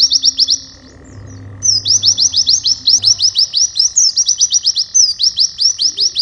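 White-eye (pleci) singing rapid, high twittering phrases, each opening with a falling sweep and running into a fast string of rising notes, about eight a second. The song breaks off briefly about half a second in and resumes at about a second and a half in phrase after phrase.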